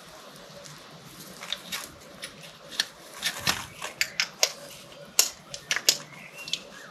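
Irregular sharp metal clicks and knocks of parts being handled at a tractor's rear hitch and hydraulic hose connections, a dozen or so, the loudest about five seconds in.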